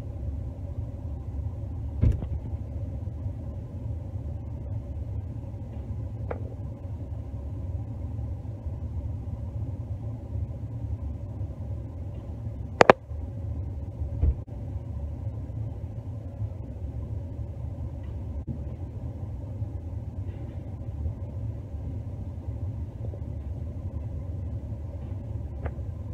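Steady low rumble of an idling vehicle heard from inside a pickup truck's cab, with a few sharp thumps from sacks of feed being dropped into the truck bed; the loudest thump comes about halfway through.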